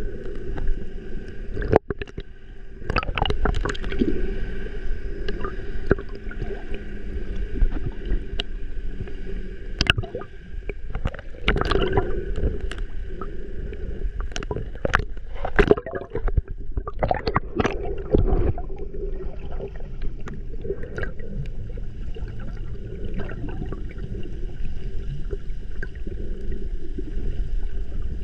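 Seawater sloshing and gurgling around a camera held at the surface, half in and half out of the water, among kicking snorkelers. Irregular sharp splashes and knocks run through it, thickest in the middle, over a steady low hum.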